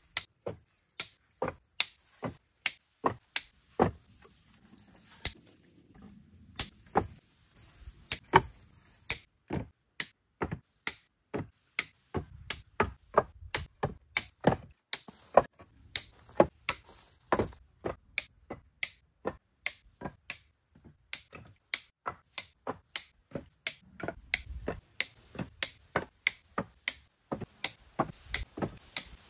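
Rapid, regular strikes of a hand tool on wood, about two a second, each a sharp knock.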